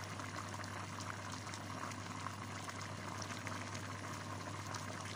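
Chicken curry in coconut-milk sauce simmering in an open pot: a steady bubbling with many small irregular pops, over a steady low hum.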